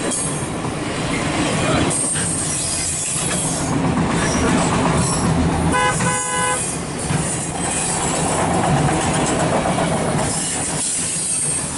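Loaded autorack freight cars rolling past on the track, a steady rumble and rattle of wheels and car bodies. About six seconds in, a short horn toot of under a second sounds over it.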